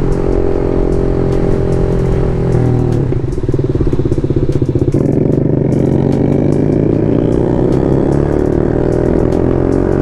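BMW G310 RR's single-cylinder engine running under the rider as the motorcycle is ridden. About three seconds in the note drops and turns into a pulsing beat, then it climbs steadily in pitch over the last five seconds.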